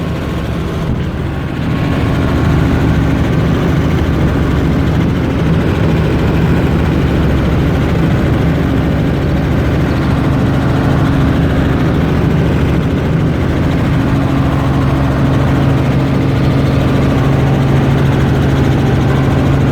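Helicopter engine and rotors running steadily in flight, a loud drone with a low hum, heard from inside the cabin; it grows a little louder about two seconds in.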